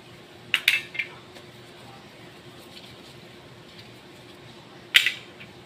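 Metal pistol parts clinking as they are handled and wiped with a cloth: a quick cluster of three sharp clicks under a second in, and one louder sharp click near the end.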